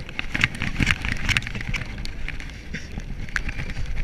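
Bobsled coaster car running down its open trough track in the rain: a steady low rumble from the wheels, with dense, irregular crackling and rattling over it.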